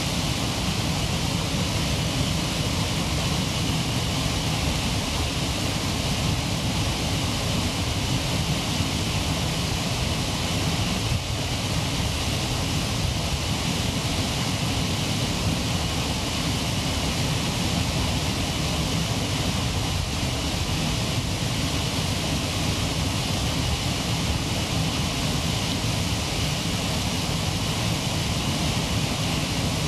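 Waterfall pouring, a steady unbroken rush of water.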